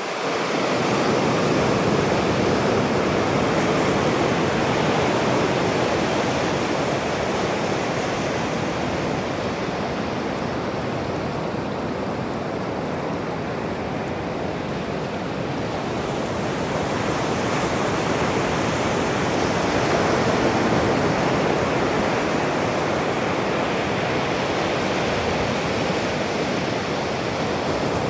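Ocean surf breaking and washing up a sandy beach: a steady rush of noise that swells and eases slowly over many seconds.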